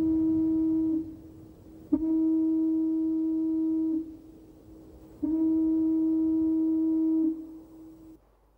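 Foghorn sounding long, steady, low blasts of about two seconds each. One is already sounding and stops about a second in, then two more follow, each trailing off in a short echo.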